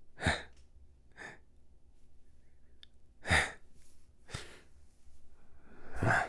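A man's voice sighing and breathing, about five short breaths and exhales spread through the pause, close to the microphone.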